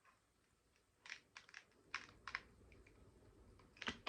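Scissors working at a broken pen stuck in a bottle neck: a series of faint, short clicks and crackles, with a sharper snap near the end.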